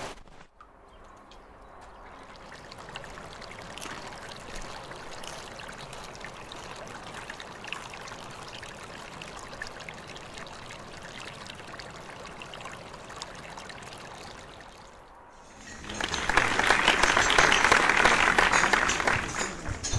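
Steady running water like a trickling stream, fading in at the start. About sixteen seconds in it gives way to a louder, denser crackling wash of noise that lasts until just before the end.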